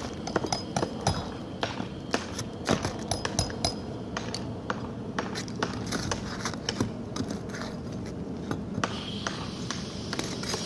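A steel flat pry bar tapping and scraping under asphalt ridge cap shingles as they are pried loose, making irregular sharp clicks and light metallic clinks, some with a brief ring.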